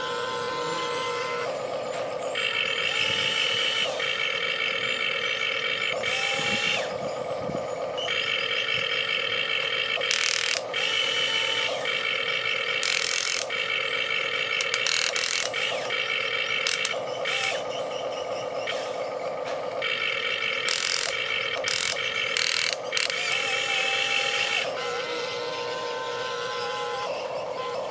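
Radio-controlled excavator working: the whine of its electric motors and gears starts and stops in spells of a few seconds as the boom, arm and bucket dig, over a steady hum, with occasional sharp clicks.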